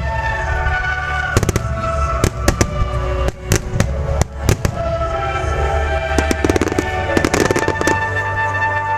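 Fireworks going off in a string of sharp bangs, with a dense run of crackling about seven seconds in, over steady music.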